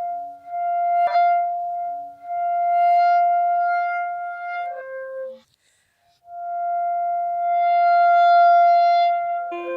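Clarinet playing long held notes, with a quieter lower note sounding under them. The sound drops out briefly a little past halfway, another long note follows, and quick short notes begin at the very end.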